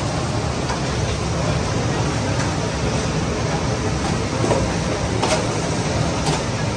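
Steady low rumble of kitchen noise, with a few light metallic clinks of a steel slotted ladle against steel trays and bowls as fried fish is scooped, in the second half.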